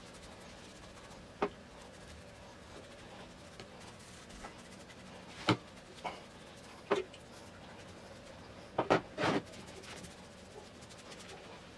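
A brush applying finish to a solid-wood piece: faint brushing with several sharp taps and knocks spread out, a quick cluster of them about three quarters of the way through.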